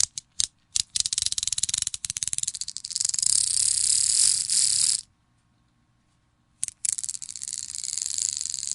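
Strings of beads being pulled free: a few separate clicks, then a fast run of rattling clicks lasting about four seconds. After a short pause, two more clicks start a second rattling run.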